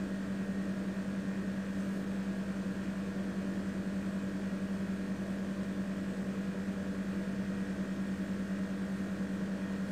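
A steady low electrical hum at one constant pitch, with a faint even hiss beneath it.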